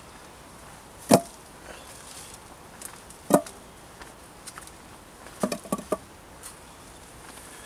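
Round wooden pole slats being set down onto a log bed frame, giving sharp wooden knocks: one about a second in, another a couple of seconds later, and a quick run of four or five clatters near six seconds.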